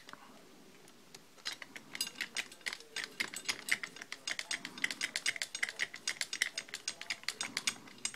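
Screwdriver driving the screws back into the Schlage B365 keyless lock's housing: a fast, even run of sharp clicks starting about a second and a half in, as from a ratcheting driver.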